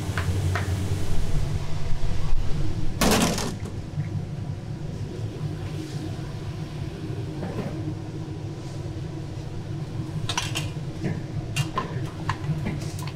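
A metal spatula scraping and clattering through peanut candy mixture in a large steel wok, over a steady low hum. A loud rushing scrape comes about three seconds in, and scattered light knocks near the end.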